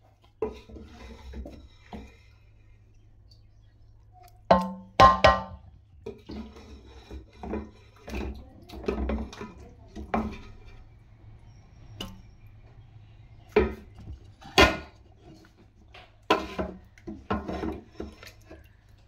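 A spoon knocking and scraping against a metal cooking pot as chicken korma is spooned over a layer of boiled rice, with irregular clanks, some of which ring briefly.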